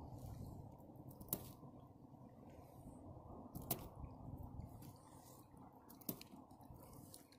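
Magnet-fishing rope being hauled in hand over hand: faint rubbing and squishing of the rope, with three sharp clicks spaced a couple of seconds apart, over a low steady rumble.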